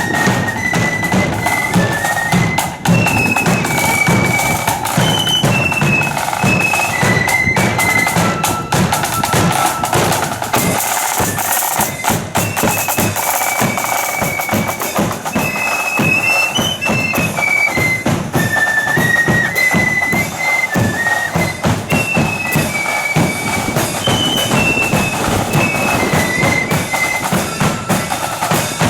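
Marching flute band playing a tune: a line of high flutes carrying the melody over rapid snare drumming and bass drum beats.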